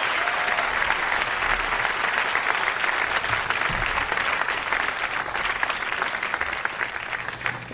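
Concert audience applauding after a song, the clapping slowly dying away toward the end.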